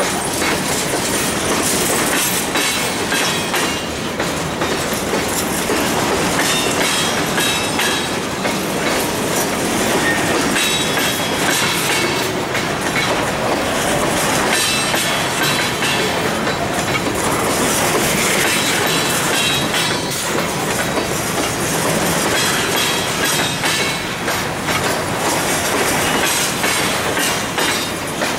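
Empty covered hopper cars of a freight train rolling past close by: steady, loud rumble and clatter of steel wheels over rail joints, with faint high wheel squeal at times.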